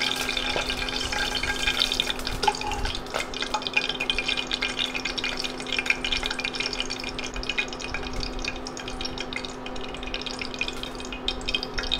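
Hot oil ladled over a sauced steamed fish, sizzling and crackling as it hits the sauce and aromatics; the crackle thins out toward the end.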